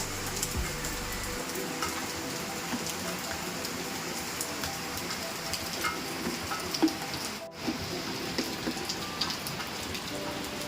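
Steady rain falling, with many small drop taps on surfaces. The sound cuts out for a moment a little past the middle.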